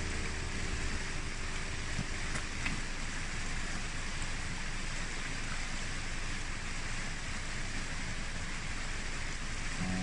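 Steady rushing of a fast-flowing mountain stream, an even wash of water noise with no change in level.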